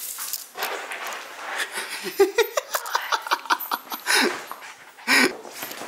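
Quiet giggling: a run of quick breathy pulses of laughter, then two louder puffs of breath near the end.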